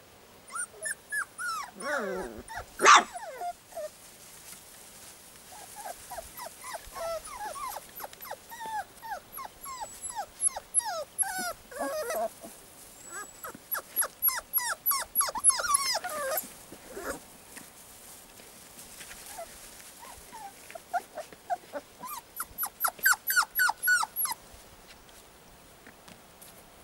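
Young puppies, about four and a half weeks old, giving short squealing cries, many falling in pitch, in clusters. The loudest, sharpest cry comes about three seconds in, with a quieter stretch a little past the middle.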